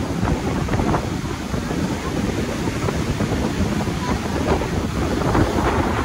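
Rough cyclone-driven surf breaking and washing up the beach in a steady roar, its hiss swelling near the end as a wave rushes in. Strong wind buffets the microphone throughout.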